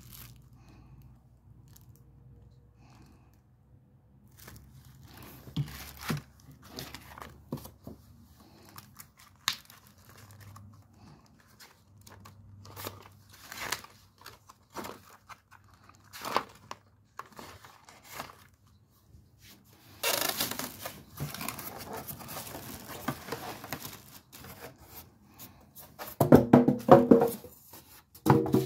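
Clear plastic packaging bags crinkling and rustling as they are handled, with scattered taps and knocks. The crinkling grows dense about two-thirds of the way in and is loudest near the end.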